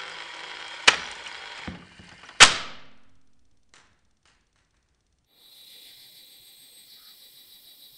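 A Lego Technic motor whirs as it winds the string of the tank gun's string-release trigger onto a spool, with a click about a second in. About two and a half seconds in, the mechanism lets go with a loud snap that rings briefly. Near the end a faint, steady, high-pitched pulsing sound begins.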